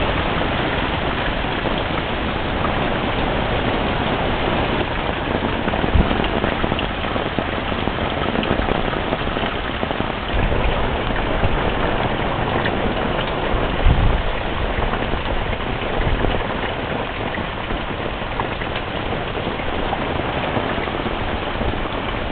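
Heavy monsoon rain pouring down in a steady, dense hiss, with a few short low thuds about six and fourteen seconds in.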